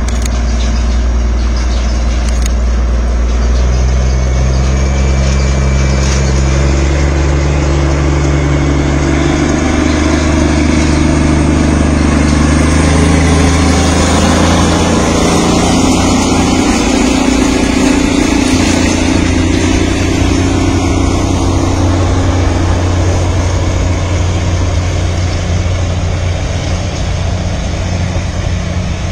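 The Darjeeling Himalayan Railway toy train's diesel locomotive running as the train passes close by. It makes a loud, steady engine drone whose low pitch steps up and down several times, and it is loudest about halfway through.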